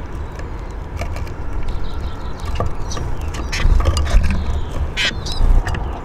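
A few brief, sharp high sounds from Eurasian siskins on a wooden bird table, mostly in the second half, over a steady low rumble.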